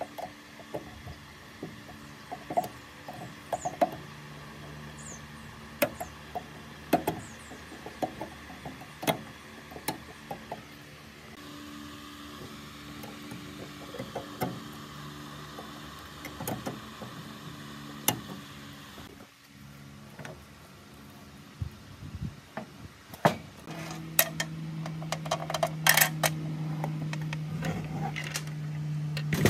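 Scattered light metallic clicks and clinks of pliers and hand tools fitting a retaining clip onto the spring-loaded pivot shaft of a metal cutter's arm, over a steady low hum. Near the end the hum grows louder and a quick run of sharper clicks comes.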